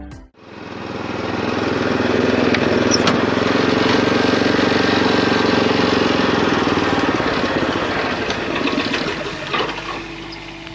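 A small engine running, swelling up just after the start, holding steady, then fading away near the end.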